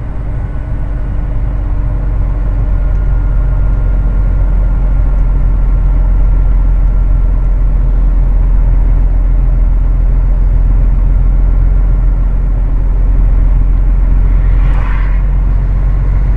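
Heavy truck's diesel engine running steadily with a deep drone, heard from inside the cab, growing louder over the first couple of seconds and then holding. A short higher sound cuts in near the end.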